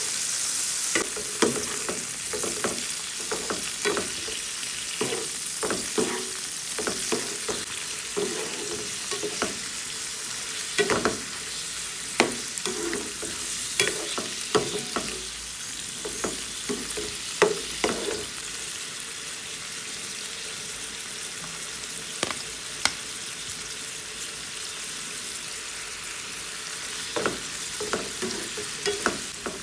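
Food sizzling in a hot pan while a utensil stirs it, knocking and scraping against the pan. The knocks come thick and fast through the first half, thin out for a stretch, then pick up again near the end over the steady sizzle.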